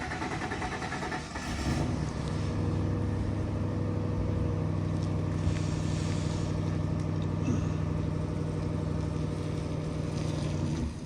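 A vehicle engine running steadily at low revs, which cuts off shortly before the end.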